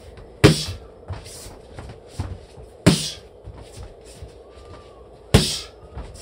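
Boxing gloves smacking into focus mitts in a slip-and-cross pad drill: three loud, sharp slaps about two and a half seconds apart, with lighter taps in between.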